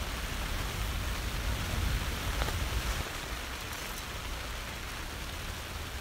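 Steady rain falling on a tent's fly, heard from inside the tent, an even hiss. A low rumble underneath it in the first few seconds eases off about three seconds in.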